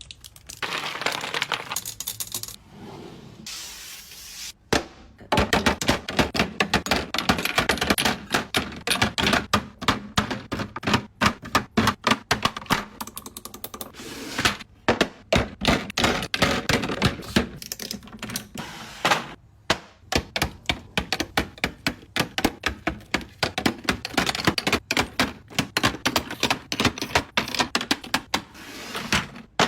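Makeup products being handled close up, ASMR-style: rapid, irregular tapping and clicking on plastic makeup cases and containers, with stretches of scratching and rustling in between.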